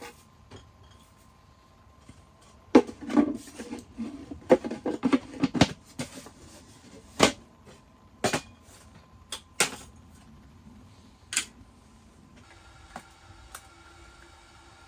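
Clinks and knocks of camp cookware and utensils being handled: a quick cluster of sharp strikes a few seconds in, then single knocks spaced out for several seconds. Near the end a faint steady hum starts.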